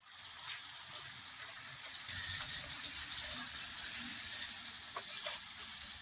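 Kohlrabi pieces frying in hot oil in a kadai: a steady sizzling hiss with a few faint clicks.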